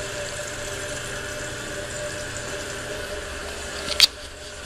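Fluidmaster 400A fill valve refilling a Kohler Highline toilet tank after a flush, a steady hiss of running water. About four seconds in there is a sharp click and the water sound drops away as the valve shuts off.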